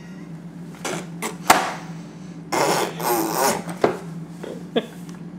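A baby blowing a raspberry with his lips, a sputtering burst about halfway through with shorter ones before it. A few sharp knocks sound in between, the loudest about a second and a half in.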